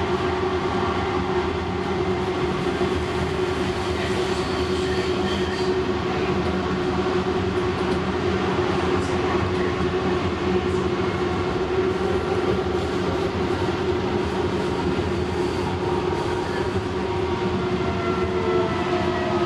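Lynx Blue Line Siemens S70 light rail car running at speed, heard from inside the passenger cabin. A steady rolling rumble with an even drive hum holds throughout.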